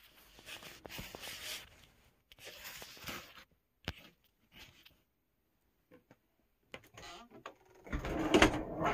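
A plastic laundry basket full of clothes dragged across the floor in a few short scraping stretches, then a lull with a couple of clicks. Near the end the clothes dryer's door is pulled open, the loudest sound.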